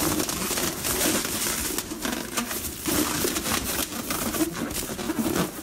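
Inflated latex balloons squeaking and rubbing against each other as they are twisted and tied together into a cluster, in a continuous run of short uneven squeaks.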